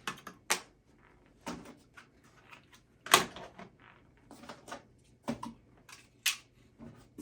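Small plastic devices, Honeywell 5816 wireless door/window sensors, being handled and set down: a string of separate clicks and knocks, the loudest about three seconds in.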